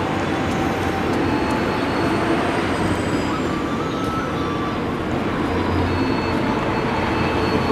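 Steady street traffic noise: a constant rumble and hiss of passing vehicles.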